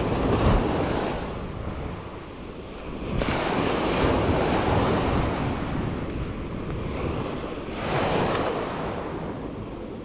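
Gentle ocean waves breaking and washing up the beach in three surges, about a second in, around four seconds in and near the end, with a steady low rumble of wind on the microphone.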